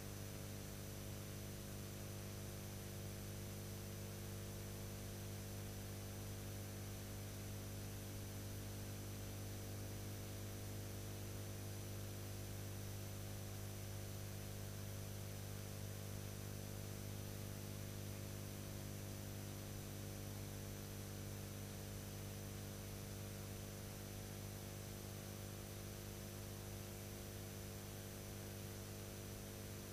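Steady electrical mains hum with a layer of hiss, unchanging throughout: the empty sound track of a silent archival film transfer.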